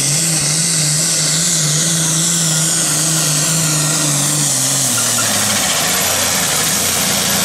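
Turbocharged straight-six diesel of a John Deere 4430 super farm pulling tractor running flat out under the load of the pulling sled, with a high whine that slowly falls. The engine note drops in pitch about five seconds in.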